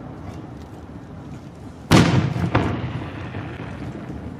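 Fireworks shells bursting: a loud boom a little under two seconds in, then a second bang soon after, each trailing off in a low rumble.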